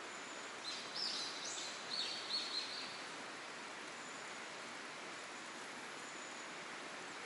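A small bird gives a quick run of short, high chirps in the first three seconds, over a steady outdoor background hiss.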